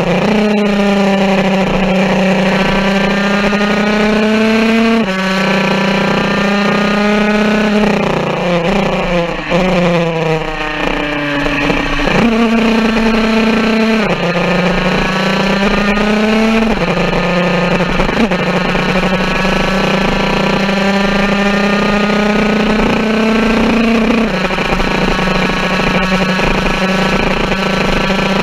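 Jawa 50 racing motorcycle's small two-stroke single-cylinder engine run hard at high revs: its pitch climbs steadily and drops sharply at each upshift, about half a dozen times. About eight to eleven seconds in the pitch falls further and the level dips briefly before it pulls away again.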